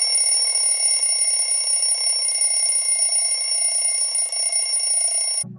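A clock's alarm bell ringing continuously with a steady high jangle, cutting off suddenly about five seconds in.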